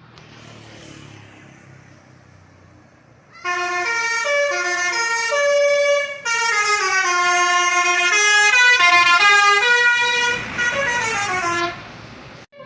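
Basuri multi-tone 'telolet' bus horn playing a tune of quick stepping notes. It starts about three and a half seconds in over a low background rumble, breaks off briefly midway, and ends with a few quieter falling notes near the end.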